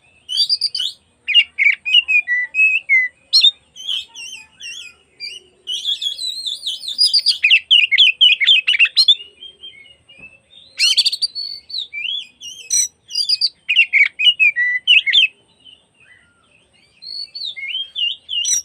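Oriental magpie-robin (kacer) singing a long, varied song of quick, changing whistles and trills. It falls quiet briefly near the end, then starts again.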